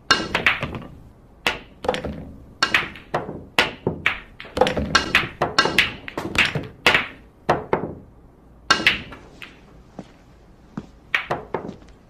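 Pool balls clacking during practice shots: the cue tip strikes the cue ball and the balls knock together. There are many sharp knocks at irregular intervals, some in quick pairs.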